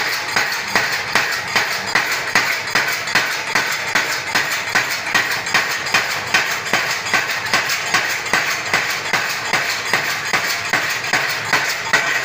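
Small mechanical power hammer pounding hot iron held in tongs on its anvil, a steady run of sharp metal blows at about three a second.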